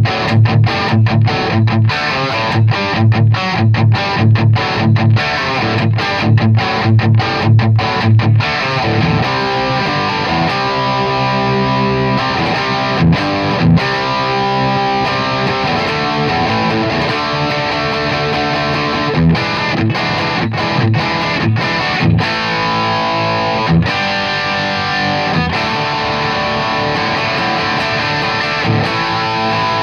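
Epiphone SG Standard electric guitar played with distortion. For the first eight seconds or so it plays a tight, chopped palm-muted riff on low notes. It then moves to sustained distorted chords and single-note lines.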